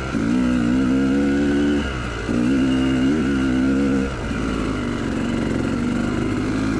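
Yamaha YZ295 two-stroke dirt bike engine on a slow trail ride: two spells of throttle with a short dip about two seconds in, then easing off to a lower, steadier note after about four seconds as the exhausted rider backs off and coasts.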